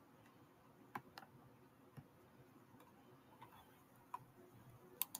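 Near silence with about six faint, sharp clicks at irregular moments.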